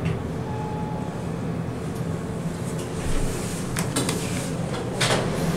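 Steady low background hum, with a few sharp clicks about four seconds in as an elevator car button is pressed, and a brief hiss-like burst a second later.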